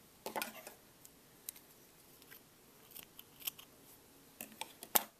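Scissors snipping the yarn to fasten off the finished round: a handful of sharp clicks and snips, the loudest just before the end.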